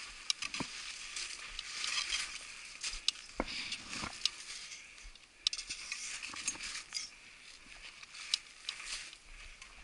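Boots wading through deep snow, crunching and swishing unevenly, with scattered short metallic clicks of climbing hardware on the harness and pack.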